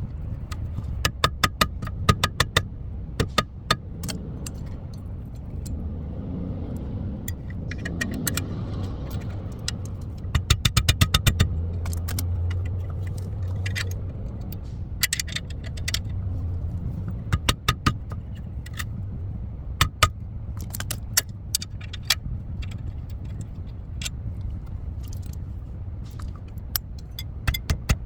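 Metal hand tools clinking and clicking against suspension parts in short quick clusters, several times, over a steady low hum.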